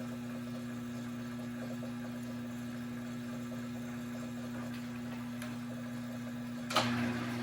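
Glass lathe running with a steady electric motor hum while the shimmed tubing turns in the chucks. Near the end there is a sharp click, and the hum gets slightly louder.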